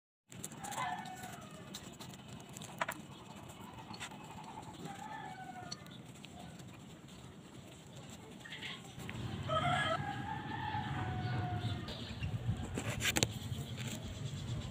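Chickens calling: short clucking calls about a second in and again around five seconds, then a rooster crowing for about two seconds from about nine and a half seconds in. A few sharp clicks sound along the way.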